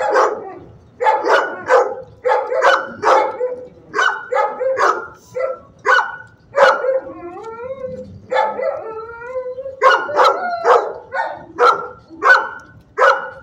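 Shelter dog barking repeatedly, in runs of about two barks a second, with a couple of longer, wavering howl-like calls in the middle; the barking stops at the end.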